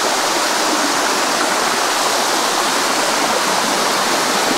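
Water rushing steadily down the limestone cascades of the Bua Tong sticky waterfall, a loud, even rush with no breaks.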